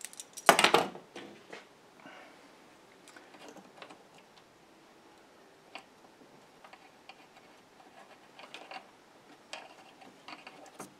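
Light metal clicks and scrapes of pliers bending the spikes of a pinball playfield T-nut back into place, with one louder clatter about half a second in.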